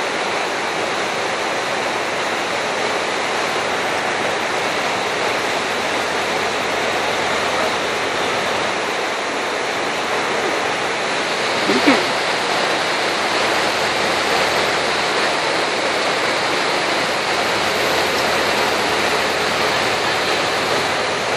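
Steady rushing of flowing water, an even hiss that holds level throughout. A single brief sound stands out about halfway through.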